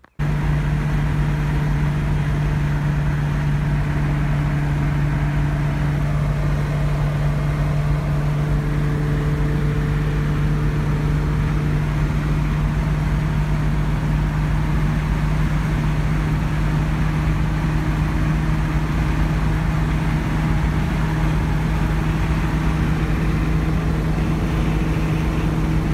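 TVR 2500M's Triumph 2.5-litre straight-six heard from inside the cabin, running steadily at highway cruising speed.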